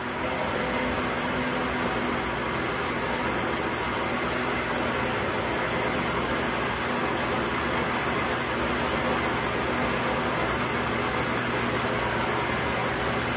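Electric blender motor running at a steady speed.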